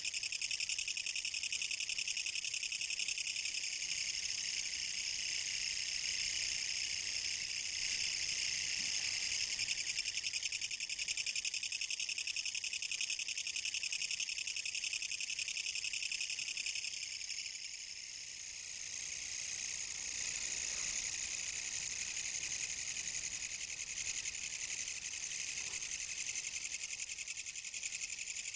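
Kutsuwamushi (Japanese katydid, Mecopoda niponensis) calling: a continuous, fast, rattling high-pitched buzz. It weakens briefly about two-thirds of the way through, then carries on.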